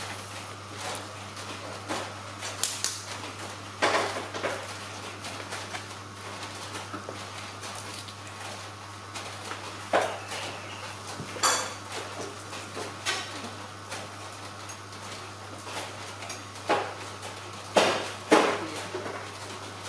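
Spoon and dishes clinking during a meal: a dozen or so separate knocks at irregular intervals, two loud ones close together near the end, over a steady low hum.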